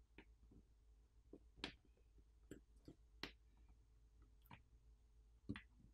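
Faint, irregular small clicks and taps, about nine over a few seconds with a few sharper ones, from the small parts of a disassembled smartphone and hand tools being handled and set down.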